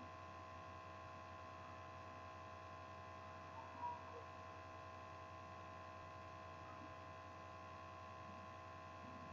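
Faint steady electrical hum in the recording, several constant tones with no other activity, and one brief faint chirp about four seconds in.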